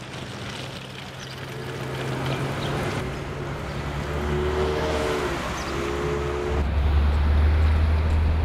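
City street traffic noise with a motor vehicle's engine rumble, growing louder and deepest over the last two seconds.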